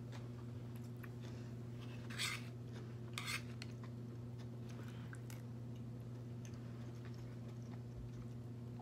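Close-up chewing sounds, with two short crisp crunches about a second apart, two to three seconds in, and faint small clicks. A steady low hum runs underneath.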